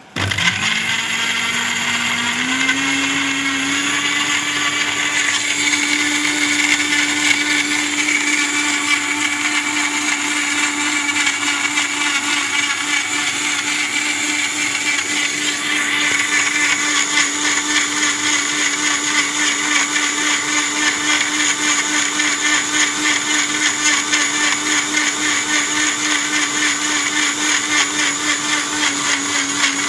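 Philips HL7556 750-watt mixer grinder motor starting up and running continuously, grinding fresh coconut with water. Its whine rises in pitch over the first few seconds, then holds steady and loud.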